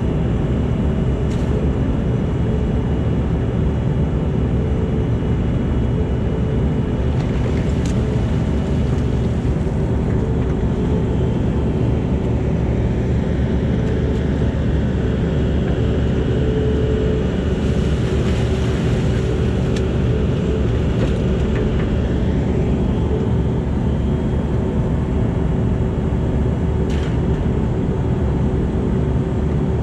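Caterpillar 308 mini excavator's diesel engine running steadily under work. About halfway through, a faint higher whine dips and climbs again.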